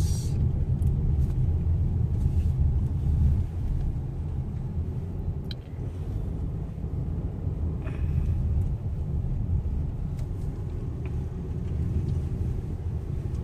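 Steady low rumble of a car driving along, its engine and tyre noise heard from inside the cabin.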